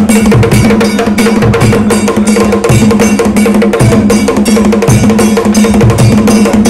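Drum-led percussion music with a fast, steady beat of sharp strokes over held low notes and deep drum hits about once a second.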